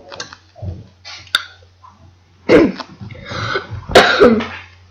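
A girl coughing in short bursts, the loudest about two and a half and four seconds in, over a steady low hum.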